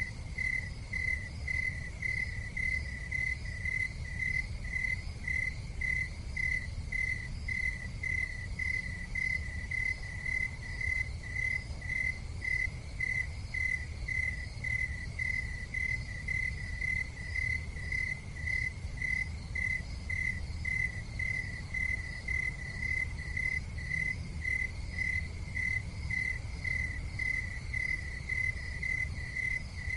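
Cricket chirping in a steady, even rhythm, a little under two chirps a second, over a low steady rumble.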